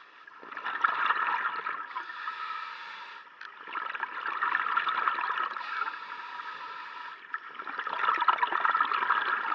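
Underwater bubbling and gurgling, muffled, rising and falling in three long swells with quieter gaps between them.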